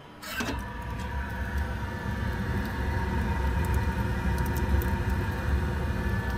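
The firebox door of a Calmar V33 wood-fired boiler clicks open about a third of a second in. A loud, steady low rumble from the burning wood load follows through the open door, with a steady whine over it.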